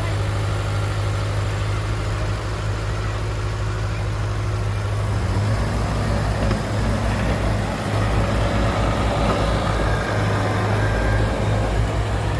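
Heavy diesel engine running steadily. About five seconds in it works harder and sounds fuller and rougher.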